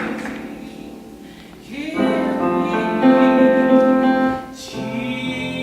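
Church service music. A sung phrase fades away, then a full chord is held for about two and a half seconds, and a new chord starts near the end, on piano or another keyboard with voices.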